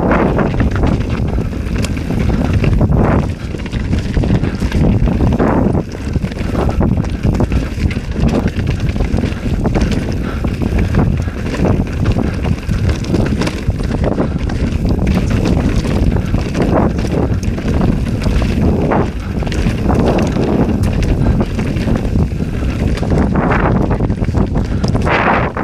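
Heavy wind buffeting the action camera's microphone as a mountain bike rides fast down a rough singletrack, with frequent knocks and rattles from the bike over the stony trail.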